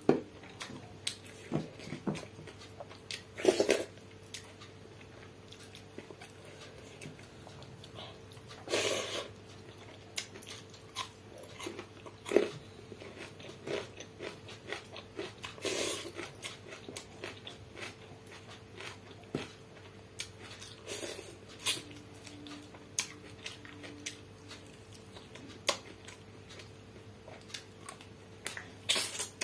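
Close-up sounds of a person eating water-soaked rice and chicken curry by hand: chewing and mouth smacks with many small irregular clicks. A handful of louder short mouth sounds come every five to seven seconds.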